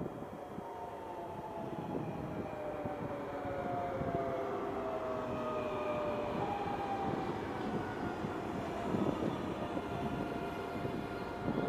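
Double-deck electric passenger train running past close by: the rumble of its wheels on the rails, growing louder as it comes in, and a whine of several tones that glide slowly down in pitch.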